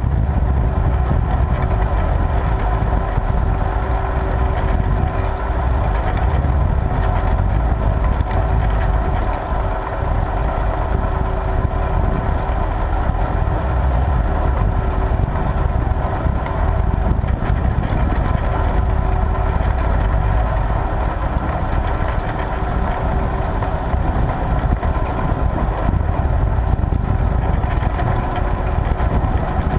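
Tractor engine running steadily while pulling a plough, with a constant low drone and a steady hum.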